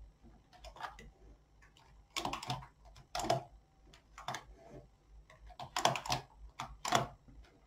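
Knitting needles clicking against each other at an uneven pace as stitches are worked.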